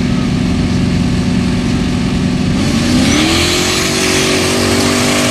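Formula Offroad buggy's engine held at high revs at the start line, then about two and a half seconds in the pitch climbs and holds higher as it launches at full throttle. A rushing hiss comes in with the launch as the rear tyres throw sand.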